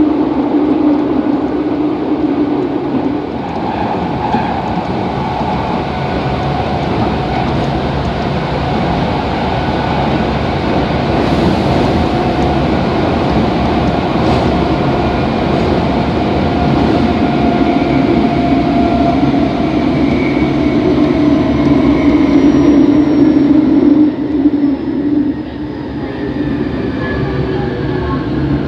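Hitachi GTO-VVVF inverter and traction motors of a Kobe Municipal Subway 3000 series car (car 3124), heard from inside the car over rail and running noise. Its tones slowly fall in pitch as the train slows, and the level dips suddenly about 24 seconds in. The car is suspected of having an unusual acceleration and braking sound above about 40 km/h.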